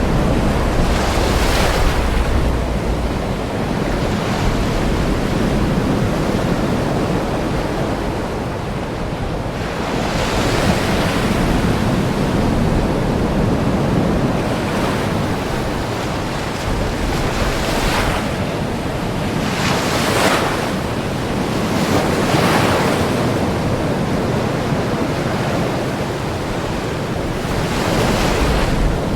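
Ocean waves breaking and washing on a shore in a continuous surge, with breakers swelling every few seconds, and low wind rumble on the microphone.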